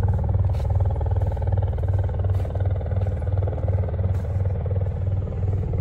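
Air-sea rescue helicopter flying close overhead, its rotor beating steadily at about four to five beats a second.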